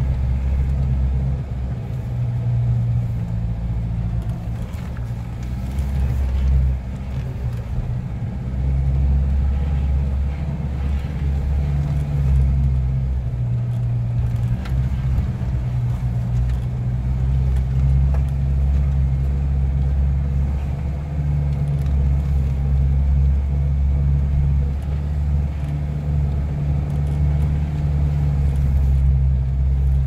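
A four-wheel-drive vehicle's engine running steadily at low speed, heard from inside the cab as it labours up a rough, bumpy dirt track, with occasional faint knocks and rattles from the bouncing vehicle.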